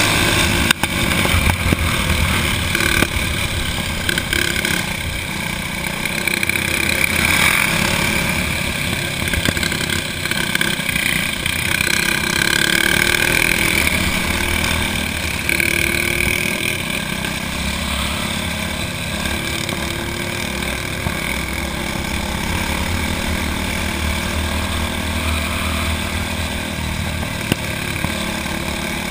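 Stock four-stroke racing kart engine running hard at speed, heard close up from onboard. Its steady note rises and falls a little through the laps.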